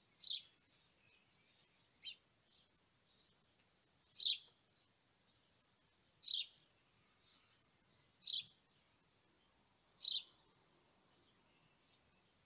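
A bird calling: a short, high chirp repeated about every two seconds, six times, over a faint background hiss.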